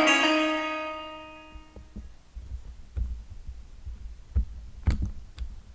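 Final chord of the karaoke backing track ringing out and fading away over about two seconds, then low thumps and a few sharp clicks.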